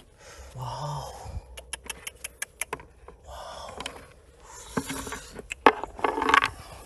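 Stones and rock being dug out by hand, with runs of sharp clicks and clinks broken by short bursts of scraping.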